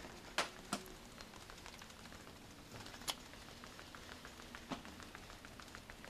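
Faint clicks: a few sharp ones, then a run of light, quick ticks at about four or five a second.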